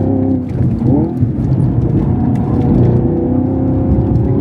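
The 6.2-litre V8 of a manual Camaro SS 1LE running hard on track, heard from inside the cabin. Its revs climb quickly about a second in, then it pulls fairly steadily.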